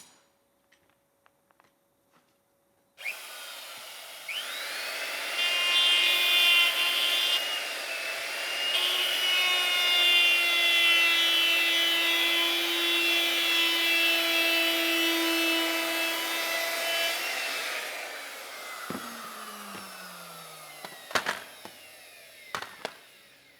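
Electric router switched on about three seconds in, spinning up to a high whine, then running with its rounding bit cutting along the edge of an MDF strip. It is switched off and winds down with a falling pitch, followed by a few knocks near the end.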